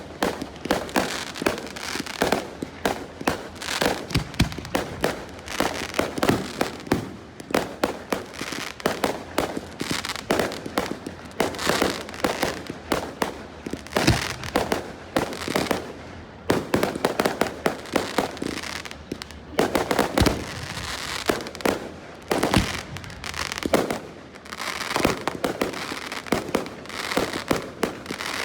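Fireworks display: a dense, continuous stream of bangs and crackling, several reports a second, some louder single bangs standing out.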